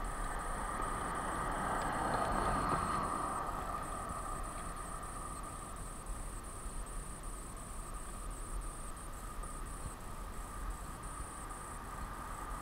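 Insects chirping in a steady, even rhythm of high pulses, over a background hum that swells about two seconds in.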